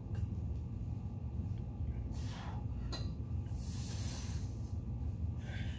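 A man breathing hard through his nose and mouth while straining at reps of a heavy one-arm row, with three forceful breaths at about two, three and a half and five and a half seconds in. A light click comes about three seconds in, and a steady low hum runs underneath.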